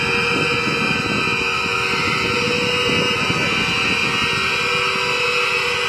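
Steam locomotive approaching along the track: a steady rushing noise with a faint held tone underneath.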